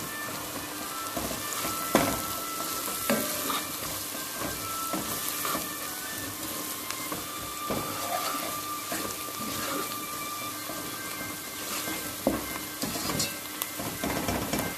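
Chopped onion, garlic and spices frying in oil in a nonstick pot, sizzling steadily as a wooden spoon stirs and scrapes through them, with a few sharp clicks.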